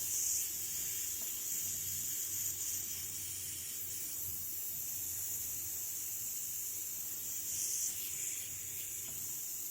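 Compressed air hissing steadily out past a second-hand gasket in a Leyland bus gear shifter, swelling a little louder twice: the gasket is not sealing, crushed in spots from earlier over-tightening.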